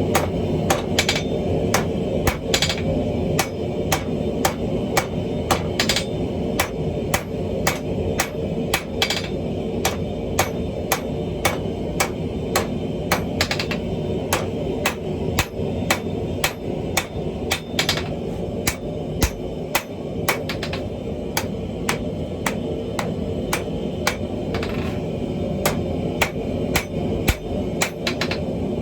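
Hammer blows forging a chain Damascus billet on an anvil, struck evenly at about three a second throughout, over a steady low rumble.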